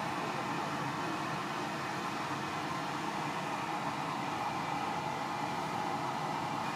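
Steady rushing noise from a large stockpot of pork belly and broth boiling over a gas burner.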